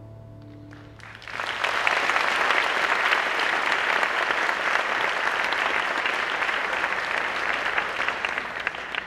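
The last held notes of the music fade out. About a second in, an audience starts applauding, a dense steady clapping that tails off near the end.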